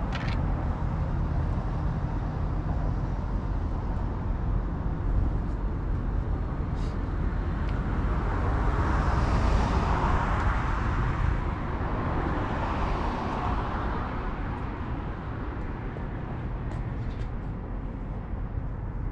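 Steady outdoor background rumble, with a hiss that swells up and fades away over several seconds in the middle, as of distant traffic passing.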